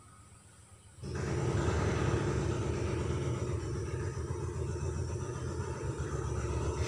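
A steady low rumble that comes in suddenly about a second in and holds on.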